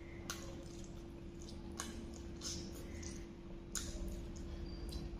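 A person eating Korean instant noodles with a fork: mouth sounds of slurping and chewing, with a few short, sharp sounds scattered through.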